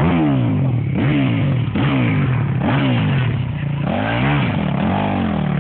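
Motocross dirt bike engine revving: the throttle is blipped over and over, the pitch rising and falling about once a second, before it settles to a steady idle at the very end.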